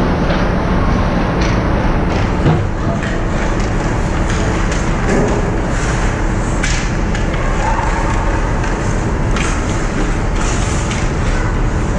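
Ice hockey play right around the goal: skate blades scraping the ice and sticks and puck clacking, over a steady low rink rumble. A sharper knock stands out about two and a half seconds in.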